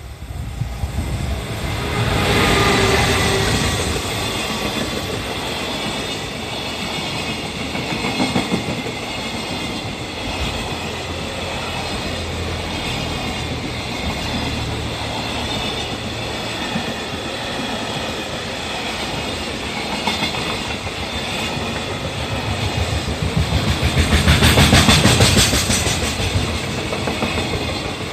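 Long freight train behind an EF210 electric locomotive rolling past slowly: a steady rumble of wagon wheels with clickety-clack over the rail joints. It swells louder about two seconds in and again near the end.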